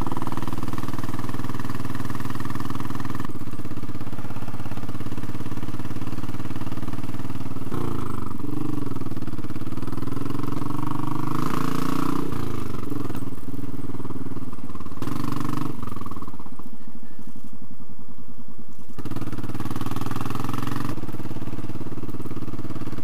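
Royal Enfield Classic 500's single-cylinder engine running while the bike is ridden. Its note rises and falls about a third of the way in, drops back and thins for several seconds past the middle, then picks up again near the end.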